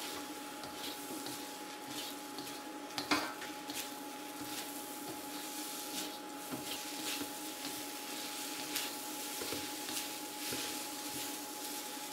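Black plastic spatula scraping and tossing fried rice around a Nuwave induction wok at 470°F, in scattered scrapes and taps over the rice's steady sizzle, the sharpest tap about 3 seconds in. A steady thin whine from the induction base runs underneath.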